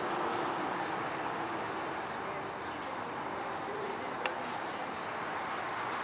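Steady background noise with a sharp click about four seconds in.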